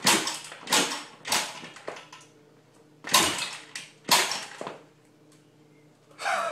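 Kick starter of a 110cc pocket bike being stomped again and again: about seven sharp clattering strokes in quick groups, with a pause in the middle. The engine does not start.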